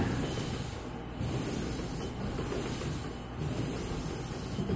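Paint roller with a 15 mm nap sleeve rolling wet acrylic paint onto a wall: a steady rubbing noise that swells slightly with the strokes.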